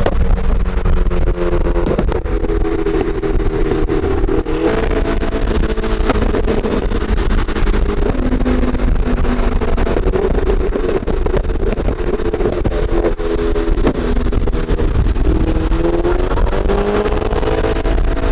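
Car engine running at highway speed with heavy road rumble, heard from inside a moving car's cabin; the engine note drifts and rises near the end.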